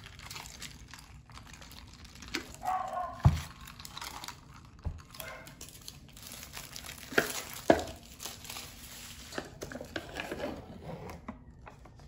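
Tabletop handling sounds: a thump about three seconds in as a plastic milk-tea cup is set down on a cork coaster, then a few sharp clicks and crinkling of packaging as an instant udon cup is handled and its lid peeled back.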